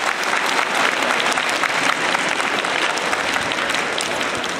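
Audience applauding: many hands clapping in a dense, steady patter, easing slightly near the end.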